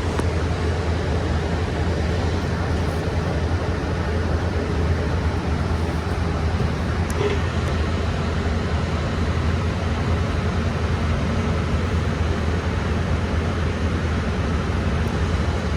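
Bus engine and road noise heard from inside the passenger cabin, a steady low rumble, with one brief faint sound about seven seconds in.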